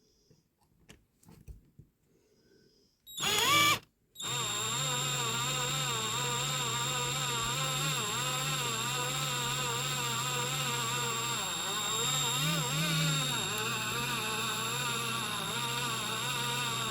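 A few faint handling clicks, then an electric drill starts with a short loud burst about three seconds in and, after a brief stop, runs steadily with its pitch wavering as the bit bites, drilling out a rivet post on a diecast toy car.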